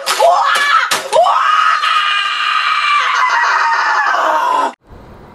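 A boy screaming in a rage: a couple of short yells, then one long drawn-out scream that sags in pitch at the end and cuts off abruptly near the end.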